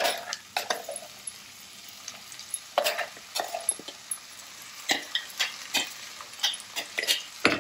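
Green coriander paste frying in hot oil with onions and peas in a pan: a low steady sizzle under irregular clicks and scrapes of a spoon stirring it.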